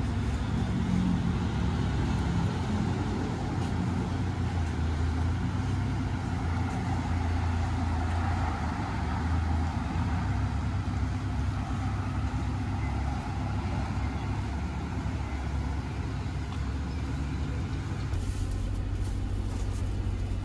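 A vehicle engine running steadily, giving a continuous low hum.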